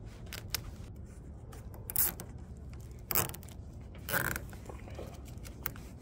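Hands working around taped air-conditioner refrigerant pipes and their insulation: scattered small clicks and three short scraping rustles, about two, three and four seconds in, over a steady low background hum.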